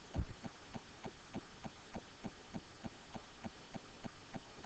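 Faint, very regular ticking, about three clicks a second, with one heavier low knock just after the start.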